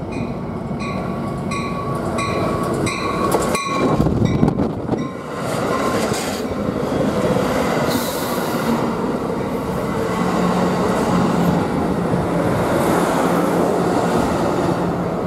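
Passenger train moving at the station: steady rumble of wheels on rail. A bell rings about twice a second for the first few seconds.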